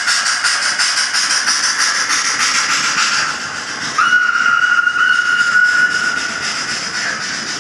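Sound decoder of a model steam locomotive (Liliput 140C6 with ESU LokSound) playing rapid steam chuffs that die away after about three seconds, followed by a single steady whistle blast of about three seconds.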